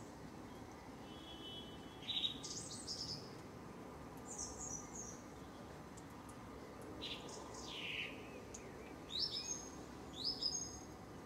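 Common blackbirds singing their evening song: separate short warbled phrases a couple of seconds apart, some sliding down in pitch, others ending in high twitters, over a steady low background hiss.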